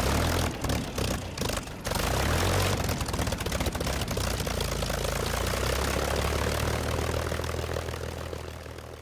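Propeller aircraft engine running with a steady low drone, choppy for the first two seconds, then fading away near the end.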